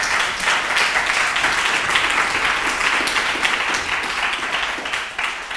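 Audience applauding, many hands clapping steadily, beginning to die away near the end.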